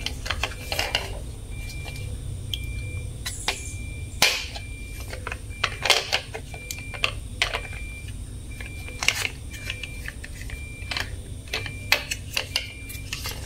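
Hard plastic toy truck parts clicking and knocking together as they are handled and fitted. Under them a short, high beep repeats at one steady pitch about once a second.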